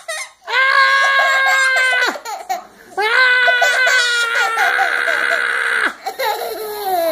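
Young girl laughing hard: two long, high-pitched, drawn-out laughs, then a few shorter ones that fall in pitch near the end.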